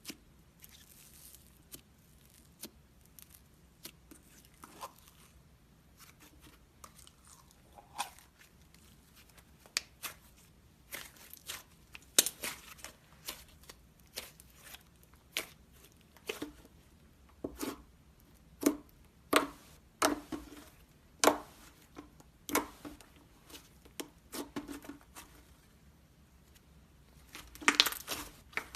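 Bubbly slime being squeezed and stretched by hand, giving sharp pops and crackles as trapped air bursts. The pops are sparse and faint at first, then come louder, about once a second, with a quick cluster near the end.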